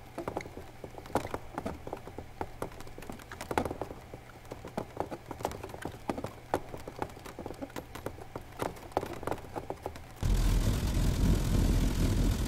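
Sparse, irregular light clicks and taps from a sound-art installation. About ten seconds in, they give way abruptly to a loud, steady rushing rumble.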